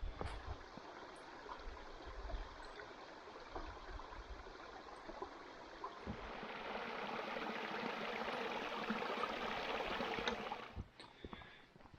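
Running water of a small stream or trickle, a steady splashing rush that swells louder about halfway through and drops away sharply near the end.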